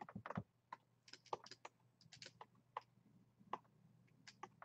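Faint, irregular clicking of computer keyboard keys, pressed in small clusters with short pauses, as when tapping keyboard shortcuts.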